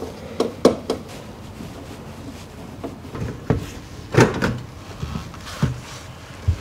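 Scattered clicks and knocks of a storage heater's front casing being unclipped and worked loose, the loudest knock a little over four seconds in.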